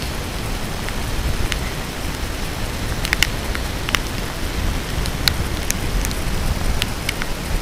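Wind buffeting the microphone in a steady low rush, with rain spattering and single drops ticking sharply on the camera every second or so.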